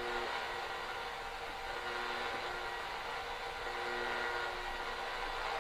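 Radio scanning the shortwave band as a ghost box: a steady hiss of static with faint low tones that come and go.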